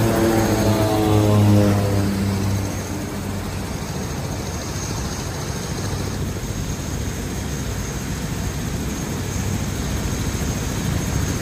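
Aircraft engine passing, its pitch falling over the first two seconds or so, then a steady rushing noise.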